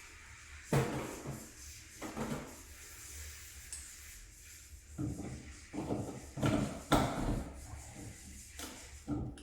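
Handling noises: irregular scraping and rubbing with several sharp knocks, the loudest about a second in and again about seven seconds in.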